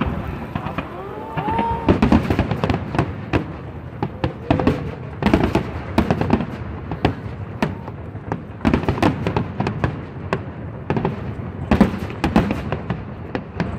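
Aerial firework shells bursting in repeated rapid volleys of bangs and crackling, with dense barrages around two, six, nine and twelve seconds in.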